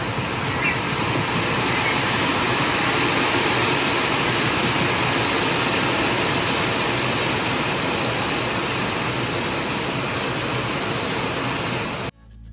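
Loud, steady hiss of outdoor field-recording ambience, with a few faint high bird chirps in the first two seconds; the hiss cuts off suddenly near the end.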